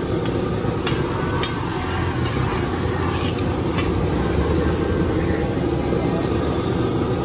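Steady low street rumble with a few light metallic clinks, the sound of cooking utensils at a food stall.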